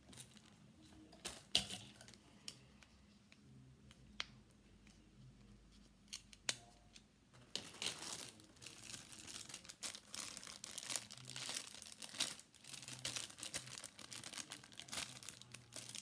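Clear plastic packaging bag being crinkled and torn open by hand. A few scattered clicks and taps come first, then continuous crinkling and rustling from about halfway through.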